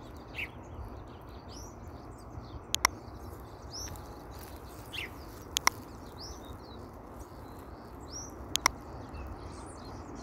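Outdoor ambience with birds calling: short falling chirps every second or so over a steady hiss. A sharp double click comes three times, about three seconds apart, and is the loudest sound.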